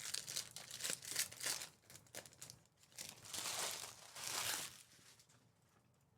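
Plastic trading-card pack wrappers crinkling and tearing as packs are ripped open: a run of quick rustles, then two longer tears, going quiet about five seconds in.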